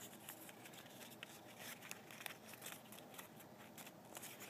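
Faint crinkling of a paper hexaflexagon being flexed between the fingers: a scatter of small, irregular paper clicks.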